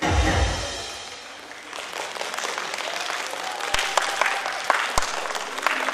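Performance music ends on a final low hit that fades out. Then an audience applauds from about two seconds in, with a few sharp single claps standing out.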